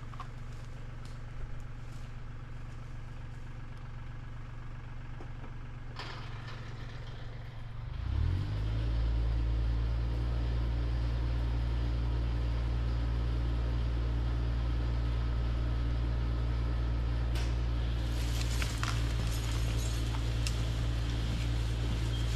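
New Holland tractor's diesel engine running steadily low, then throttled up about eight seconds in and held at a higher, louder speed. Rustling joins near the end.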